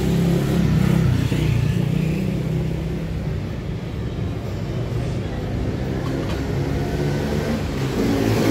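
A motor vehicle's engine running close by, low and steady, easing off after the first couple of seconds and growing louder again near the end.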